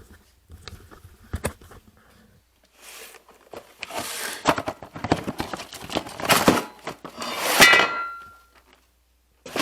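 Hands handling packaging and metal parts: rustling, scraping and knocks, with a short metallic clink that rings briefly about seven and a half seconds in.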